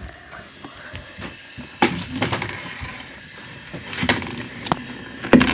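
A handful of scattered knocks and bumps, about five, with rustling in between: a phone being handled and moved about.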